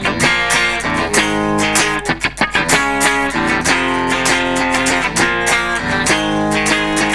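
Ibanez RC720 Premium electric guitar with Core-Tone humbuckers, strummed chords played in a steady rhythm.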